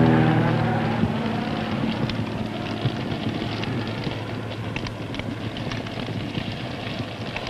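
A light single-engine plane passing overhead, its engine tone falling in pitch and fading within the first second. Then a large fire burning, a steady rushing noise with frequent crackles and pops.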